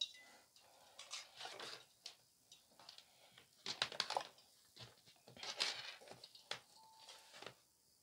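Insulated test wires rustling and scraping as they are handled and laid out, in short irregular bursts with a few light clicks.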